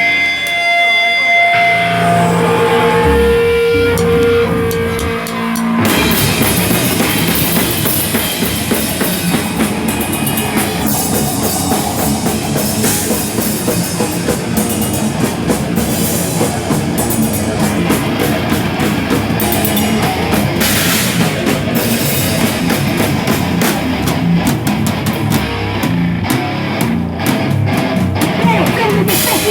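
Live rock band playing loud: a few held guitar notes, then the full band with drums comes in about six seconds in and plays on.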